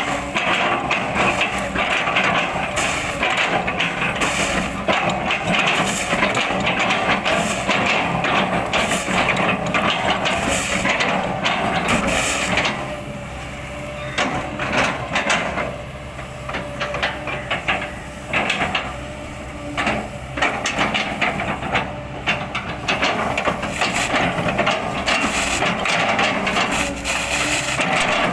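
Kobelco excavator's diesel engine running under load, with repeated sharp cracks and knocks as its bucket chops up felled oil palm trunks. The cracking eases off for several seconds near the middle, then picks up again.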